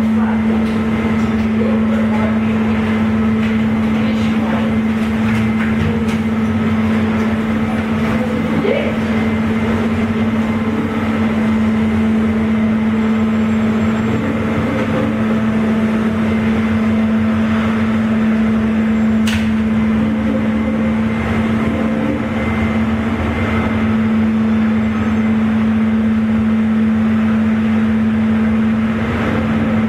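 Car ferry's engines and machinery running with a steady, loud drone and an unchanging hum. Faint voices of disembarking passengers mix in.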